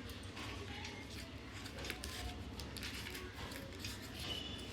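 Faint light clicks and taps as kitchen utensils and ingredient containers are handled, over a low steady hum.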